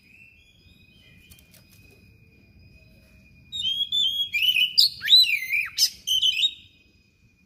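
Oriental magpie-robin (kacer) singing a burst of loud, varied whistles and sliding notes for about three seconds, starting about halfway through.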